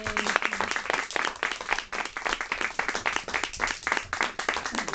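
A small group of children applauding, many pairs of hands clapping quickly and unevenly with no let-up.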